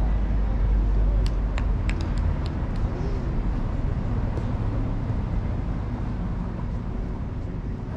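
Outdoor ambience on a futsal pitch: a steady low rumble with faint, distant players' voices, and a quick run of sharp clicks between about one and two and a half seconds in.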